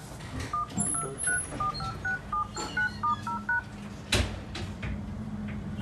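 Poco X2 smartphone's dialer keypad tones: about a dozen short two-note beeps in quick succession as the touchscreen is tapped. The screen is responding to touch again after the CPU reball. A sharp click follows about four seconds in, over a steady low hum.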